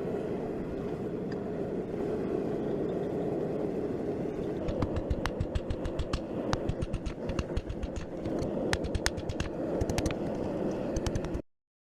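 Forge burner running with a steady roar. From a little before halfway, rapid irregular sharp clicks and taps join it, and all sound cuts off abruptly near the end.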